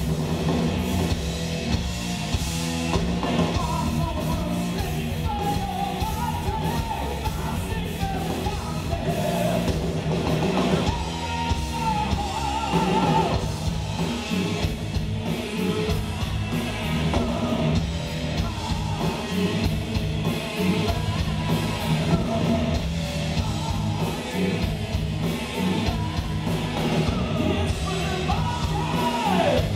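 Heavy metal band playing live: distorted electric guitars, bass and drums with sung vocals, loud and continuous.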